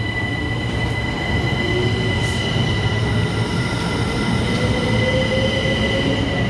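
Class 387 electric multiple-unit train pulling away over a steady rumble. Its traction motors whine in a tone that rises slowly as it gathers speed, with steady high-pitched whining tones above.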